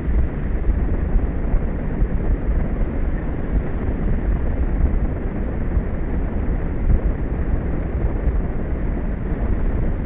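Steady wind blowing across an exposed outdoor microphone: a continuous low rush with no distinct events.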